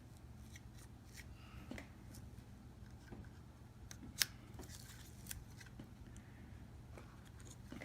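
Faint clicks and light handling noise from small laptop parts being worked by hand, with one sharper click about four seconds in, over a steady low hum.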